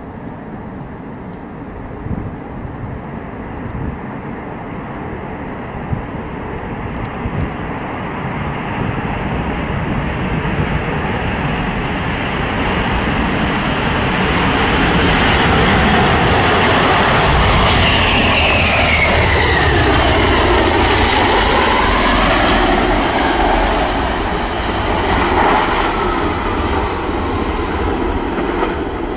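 Jet engines of a Tu-22M3 swing-wing bomber at takeoff power on its takeoff roll. The rumble grows steadily as the aircraft speeds closer and is loudest midway, as it passes. A whine sweeps down and then back up as it goes by.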